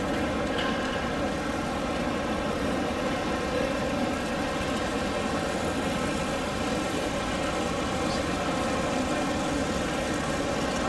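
Steady diesel engine drone from a sound-fitted model diesel locomotive, played through its small on-board speaker at an even level.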